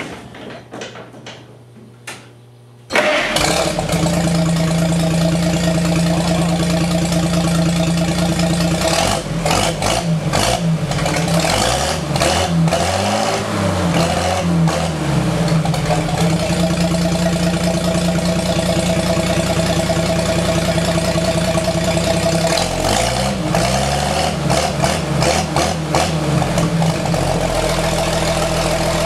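A 1932 Chevrolet rat rod truck's engine, running through dual straight pipes with no mufflers, is cranked briefly and catches about three seconds in. It runs loud and open. The throttle is blipped up and down twice, around the middle and again later, and then the engine settles back to a steady idle.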